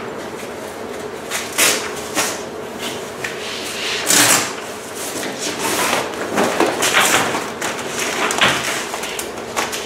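Clear plastic rain cover being pulled off a Maclaren Volo umbrella stroller, rustling and crinkling in a string of irregular bursts.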